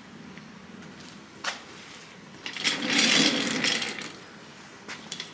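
Suspension bushing parts being handled by hand: a sharp click about a second and a half in, then a rattling clatter lasting about a second and a half, and a few light clicks near the end.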